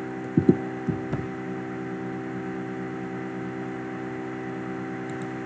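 Steady electrical hum made of several even tones, with three short, soft low knocks in the first second or so.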